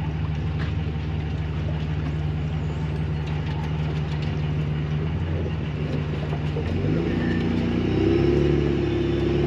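An engine running at a steady pitch, then speeding up about seven seconds in, its pitch rising and the sound growing slightly louder.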